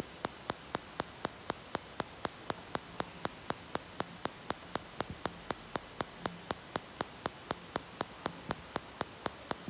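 Steady rapid ticking, about four evenly spaced ticks a second, over a faint hiss.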